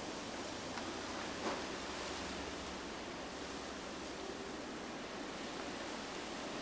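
Steady, even hiss of wintry outdoor air, light wind over a snow-covered street, with a brief rustle about a second and a half in.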